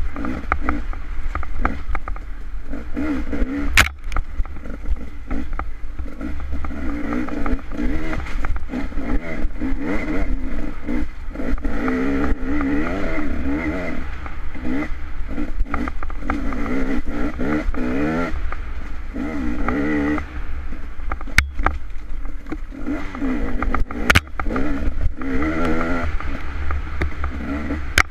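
Dirt bike engine running hard, its pitch rising and falling over and over as the throttle is opened and rolled off, with a few sharp clacks about four seconds in and twice after twenty seconds.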